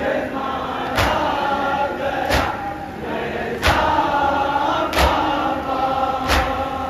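A group of mourners chanting a noha in chorus, with unison chest-beating (matam) landing as a thump about every 1.3 seconds, five times.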